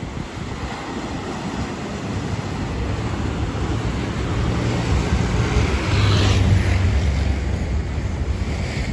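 Strong Atlantic Ocean surf: a steady low rumble of waves, swelling to a loud breaking wave about six seconds in, then easing.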